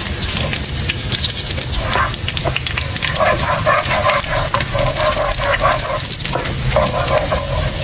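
Chopped garlic sizzling and crackling in hot oil in a nonstick wok, with a spatula stirring and scraping it around the pan in repeated strokes.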